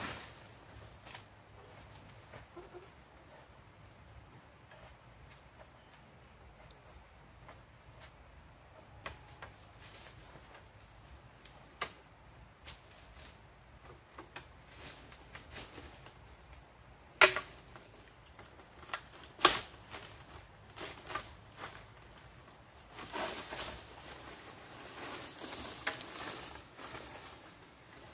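A steady high-pitched insect drone with scattered light knocks, broken by two sharp cracks a couple of seconds apart past the middle; near the end the drone stops and a stretch of rustling and clatter follows.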